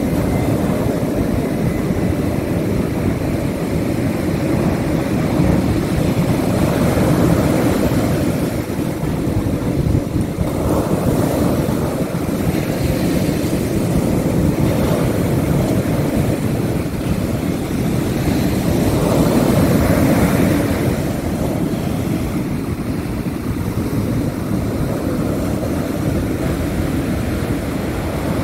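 Ocean surf breaking on a sandy beach: a steady, heavy rush of waves that swells louder a few times as sets come in.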